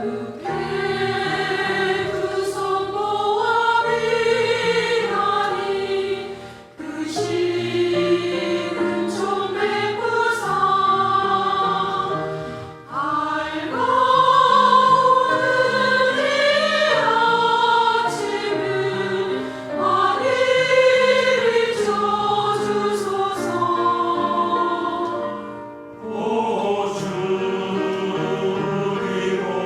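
Church choir singing a Korean hymn in sustained phrases, with a brief dip between phrases about every six to seven seconds.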